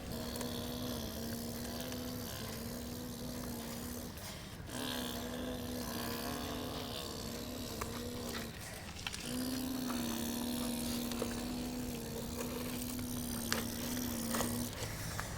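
A radio-controlled model excavator's motor running with a steady hum at one pitch. It cuts out briefly several times and starts again, and a few light clicks come near the end.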